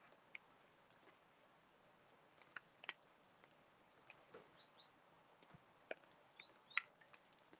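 Very faint outdoor sound: scattered sharp clicks and taps, the loudest near the end, with a small bird giving a few short, high, falling chirps around the middle and again near the end.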